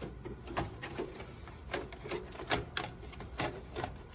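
Motherboard being fitted back into a desktop computer case: a run of irregular light clicks and knocks.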